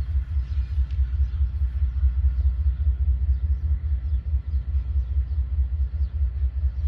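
Low, pulsing rumble of a GE C40-9W diesel locomotive's 16-cylinder engine running as the locomotive pulls away down the track.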